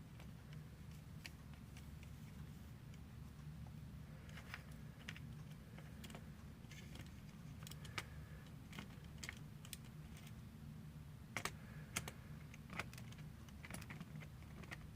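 Scattered light clicks and taps of hard plastic Lego parts being handled, irregular and more frequent in the second half, the sharpest about 8 and 12 seconds in, over a steady low hum.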